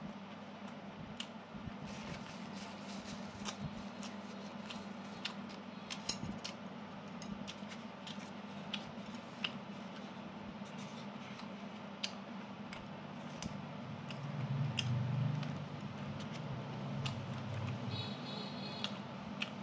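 Close-up eating sounds: chewing of roasted chicken with many small sharp clicks from mouth and chopsticks, over a steady low hum. A louder low rumble comes about three-quarters of the way through.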